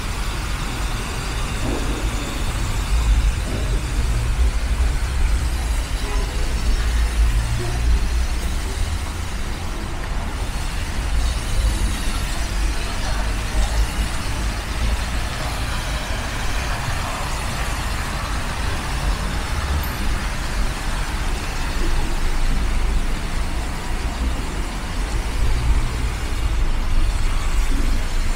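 Steady city street ambience, mostly road traffic running past, with a deep low rumble throughout.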